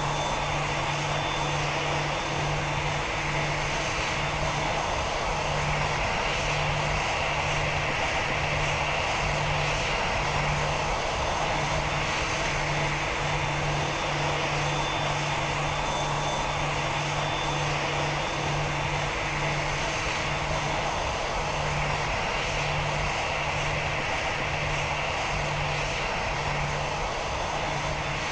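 Steady aircraft engine noise that neither builds nor fades, with a low hum pulsing on and off underneath.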